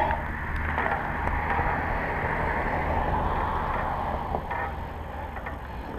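A car passing on a nearby road: tyre noise swelling to a peak about halfway through and fading away, over a steady low rumble.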